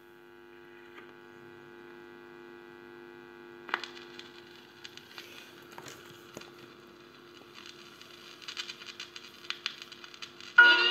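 Sanyo Portagraph portable record player with a 12-inch single spinning: a steady electrical hum, a knock about four seconds in as the tonearm is set down, then crackles and pops of the stylus in the lead-in groove. The music starts, loud, just before the end.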